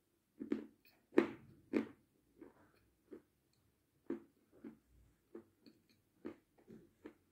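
A person chewing a crunchy sweet with the mouth closed, close to the microphone: a run of irregular crisp crunches, loudest about a second in, then softer and more spaced out.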